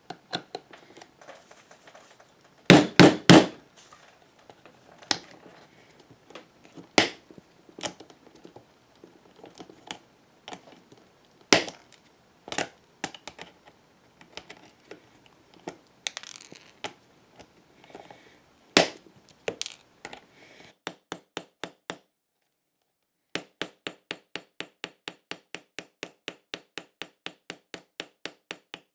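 Copper rivets being set: irregular sharp cracks and clicks of metal on a steel anvil block as the rivet posts are worked and clipped with end-cutting nippers. Then, after a short silence, a steady run of light hammer taps, about three or four a second, peening the rivet ends.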